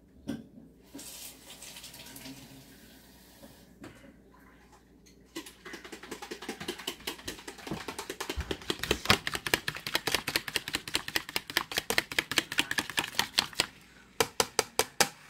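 Water running briefly from a tap at the start, then a fork whisking egg and water in a plastic container: quick, regular clicks of the tines against the sides, with a short pause near the end.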